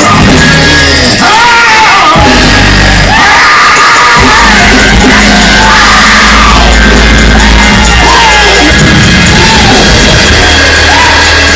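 Loud live gospel praise music: a band with bass and drums playing while voices sing and shout over it.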